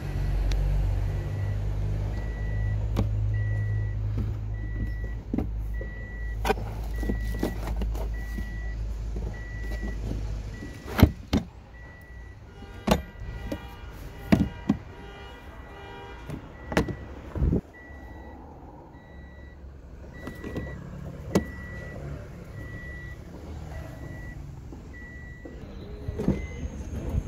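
A car's electronic warning beeper sounding steadily, a short high beep a little more than once a second, over sharp knocks and clicks of car trim and door parts being handled. A heavy low rumble fills the first ten or so seconds.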